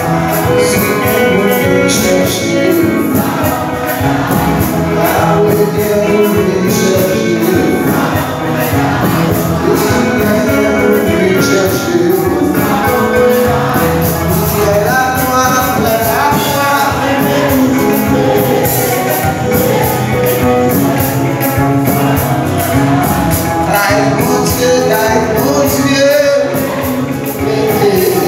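Live church worship music: singing over instruments, with a tambourine shaking a steady beat.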